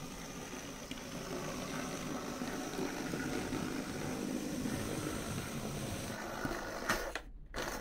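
Hornby OO gauge Terrier model locomotive running in reverse along the track: a steady whirr from its small electric motor and gears with the wheels running on the rails. A click about seven seconds in, after which the sound cuts off abruptly.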